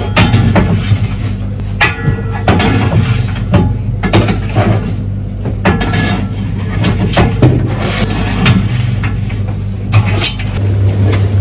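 Metal wire trays of roasted chicken being slid into a blast chiller's rack rails, clattering and scraping in a quick series of knocks. A steady low machine hum runs underneath.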